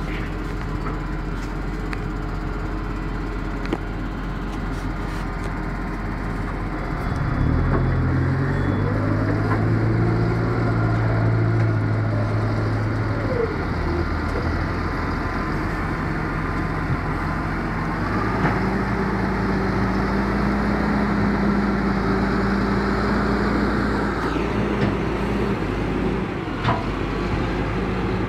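Large farm tractor's diesel engine working hard under load, hauling a loaded dump trailer through deep mud. The engine gets louder about seven seconds in, then holds a steady, higher note from about eighteen seconds.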